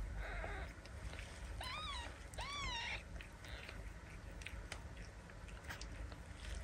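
A newborn Ragdoll kitten mewing twice, two short high cries that each rise and fall in pitch, about two seconds in. Faint rustling and small clicks sound around them.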